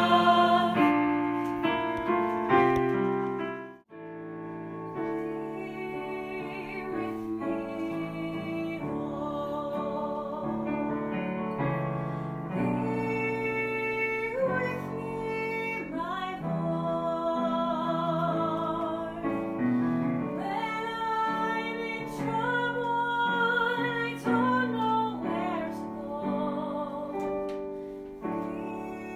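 A choir singing a sustained chord that cuts off abruptly about four seconds in, followed by voices singing over piano accompaniment.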